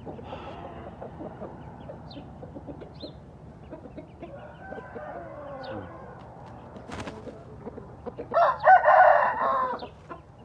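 Gamefowl rooster crowing once, loud, about a second and a half long near the end, after fainter calls from other chickens.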